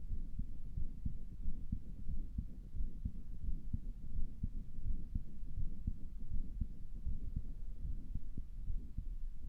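A person's own heartbeat heard through a stethoscope, a run of low, muffled beats. The owner thinks it sounds weird and wonders whether it is a heart murmur.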